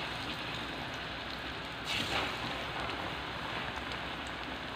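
Bananas frying in hot oil and sugar in a wok: a steady sizzle, briefly louder about two seconds in as another banana goes into the oil.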